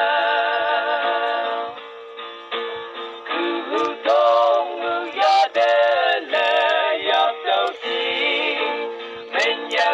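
A man singing a song over backing music. It opens on a long held note, then moves into shorter sung phrases.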